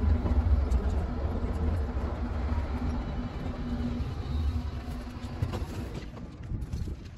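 Tram running: low rumble with a steady hum, dying down over the last couple of seconds.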